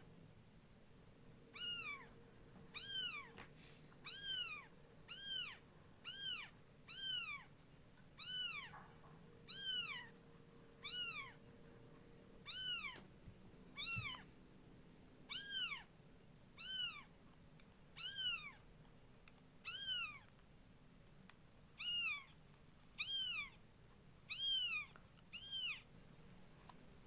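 A cat meowing over and over: about twenty short, high meows, each rising and then falling in pitch, coming roughly once a second.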